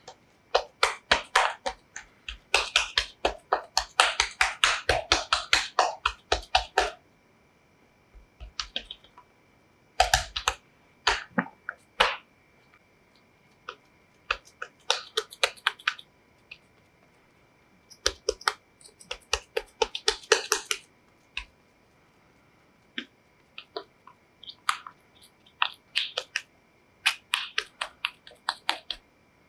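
Silicone spatula pressing and patting soft potato dough flat on a wooden cutting board: quick, sticky smacks in runs of several a second, with short pauses between the runs.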